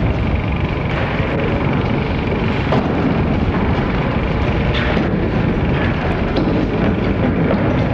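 Steady, loud rumbling noise of an old film recording's soundtrack, with a few faint knocks in it.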